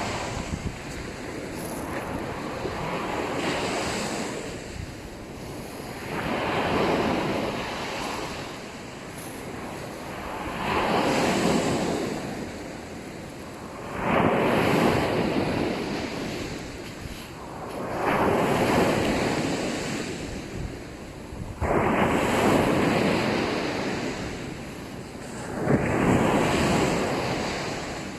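Small sea waves breaking and washing up a sandy beach, surging and fading about every four seconds.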